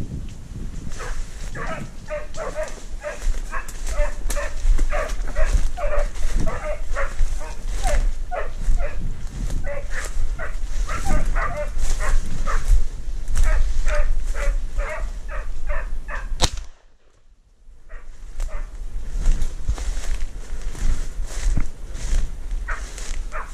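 Hunting hounds baying on a chase, rapid repeated barks several a second: the dogs giving tongue as they run the quarry, a raccoon dog. The barking breaks off briefly about two-thirds of the way through, then goes on. Under it is a low rumble of wind and brush noise from someone pushing through dry reeds.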